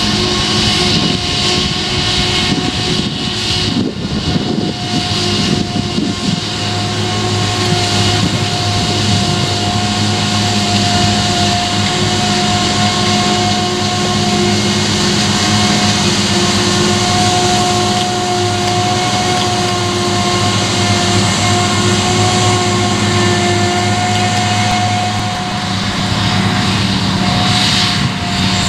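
Forage harvester and tractor working a rye field: the harvester runs steadily at full load chopping and blowing crop, a constant drone with a high whine over it, and the John Deere tractor runs alongside.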